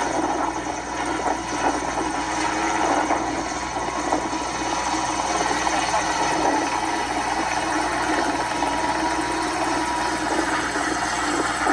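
Small two-seat piston helicopter's engine and rotor running steadily in a hover over water. The narrator reckons it is heavily loaded and at about the limit of what it will do, so the rotor is close to running out of power.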